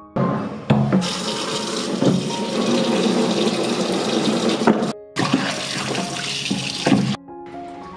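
Kitchen tap running into a plastic basin of water in a steel sink, with splashing as a wax gourd is scrubbed in it. The water starts about a second in, breaks off for a moment past the middle and stops near the end.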